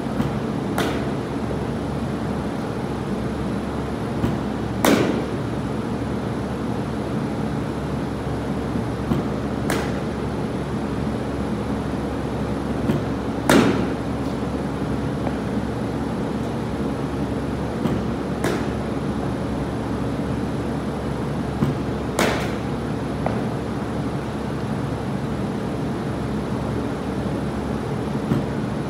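Baseball batting practice: a sharp crack of a bat hitting a pitched ball every four to five seconds, several of them about half a second after a softer knock, over a steady mechanical hum.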